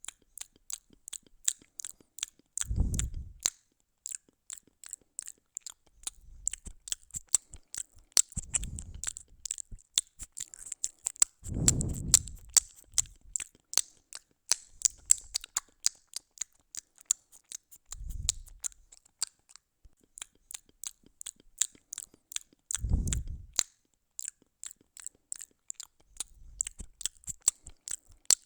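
Cat chewing dry food: a fast, uneven run of sharp crunches, with a few dull low thumps among them.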